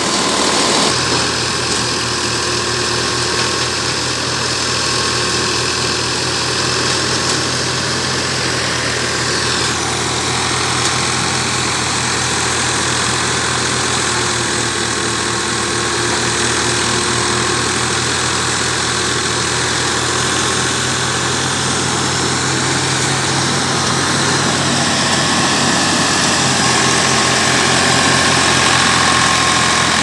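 Ford 3600 tractor's diesel engine running steadily under load, driving a rice thresher through its PTO shaft, with the thresher's steady noise mixed in.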